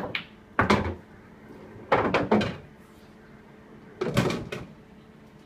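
Pool balls being played on a coin-operated pool table: a sharp click of the cue tip on the cue ball, then a loud clack of the cue ball hitting a red. The potted red drops into the pocket and knocks through the table's ball-return channel, giving louder rattling knocks about two and four seconds in.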